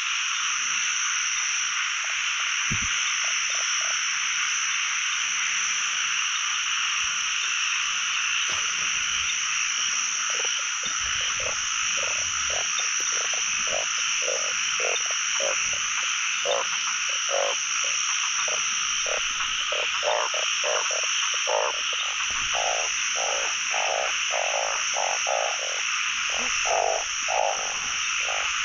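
A dense chorus of narrow-mouthed frogs (อึ่ง) calling from a flooded pond. From about ten seconds in, a nearer frog's lower croaks repeat about twice a second and grow louder toward the end.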